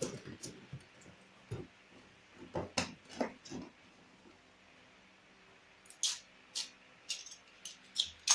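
Scattered knocks, clicks and rustles of items being handled during packing: a few bursts in the first second, a cluster around the middle and another near the end, with quiet gaps between.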